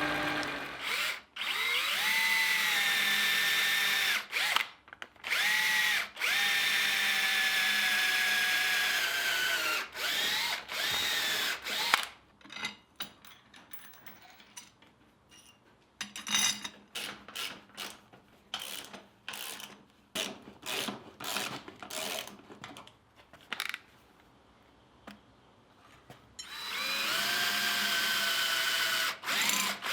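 Power drill running under load, its motor whine spinning up at each pull of the trigger and sagging slightly as it bites, in runs of several seconds. Through the middle it runs in short stop-start bursts, then runs steadily again near the end.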